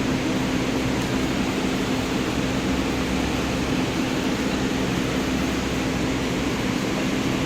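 Ford engine idling steadily with the knocking at idle that is the fault under investigation.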